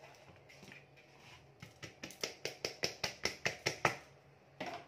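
A spoon clicks rhythmically against the side of a mixing bowl while stirring thick chocolate cake batter, about five clicks a second for two seconds, then a single duller knock near the end.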